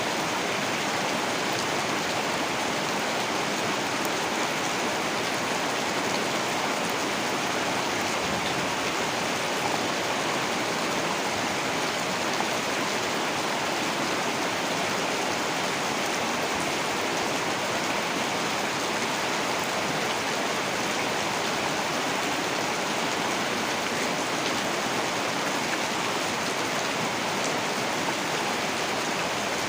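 Heavy rain falling in a steady downpour, an even unbroken rush of noise.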